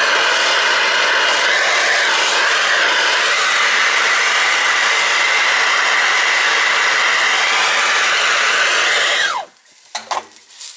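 An electric blower motor running steadily at full speed, its pitch wavering slightly a couple of seconds in, then switched off and spinning down with a falling whine near the end.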